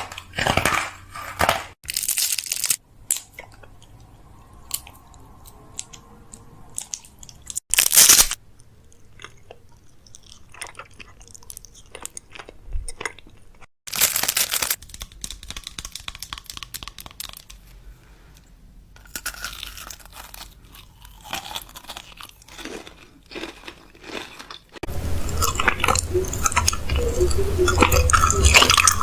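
Crunching, in a series of short crackly bursts, the loudest about 2, 8 and 14 seconds in, with denser crunching from about 25 seconds in.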